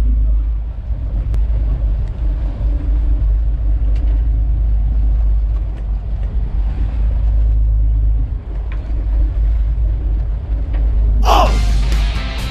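Steady low rumble of a fishing boat underway. Near the end, music cuts in.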